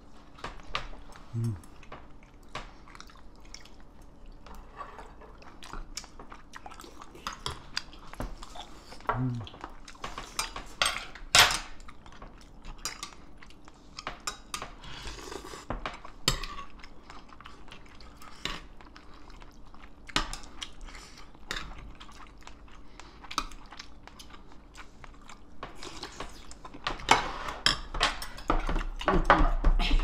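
Table eating sounds: metal chopsticks and a spoon clicking and scraping on ceramic bowls and plates, with chewing of raw oysters. There is scattered clicking throughout, one louder clack about eleven seconds in, and busier clatter near the end.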